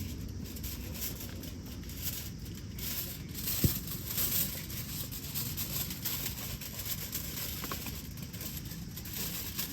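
Ingredients being cut with a knife: irregular light cuts and scrapes, with one sharper knock about three and a half seconds in, over a steady outdoor rumble.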